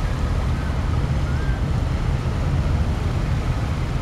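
Wind buffeting a compact camera's microphone: a steady low rumble with no distinct events.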